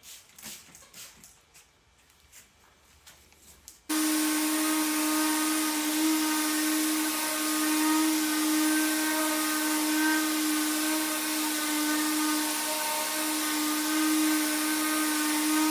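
Electric power tool running steadily at one speed with a high motor whine. It starts abruptly about four seconds in, after a few seconds of faint light ticks.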